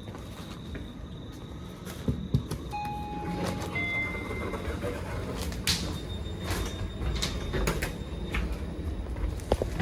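Sydney Trains train rumbling at a station platform, with scattered knocks and clicks and a few short high tones about three to four seconds in.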